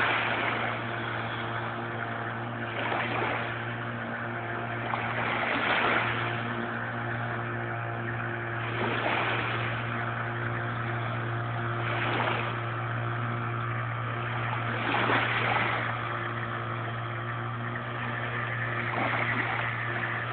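Small waves washing onto a sand-and-pebble shore, a swell of wash about every three seconds, over a steady low hum.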